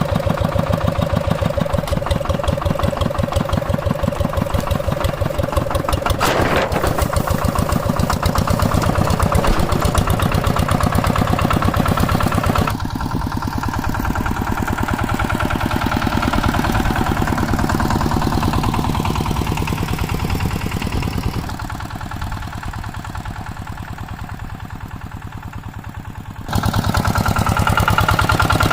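Hand tractor engine running steadily with a rapid, even chugging beat. Its loudness shifts abruptly a few times.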